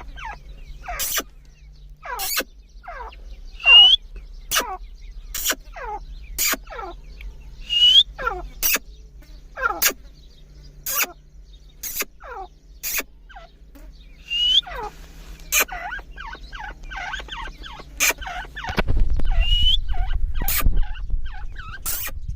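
Grey francolins calling over and over: a quick run of sharp, clipped notes, many sliding down in pitch, with a few short rising whistled notes among them. A low rumble joins near the end.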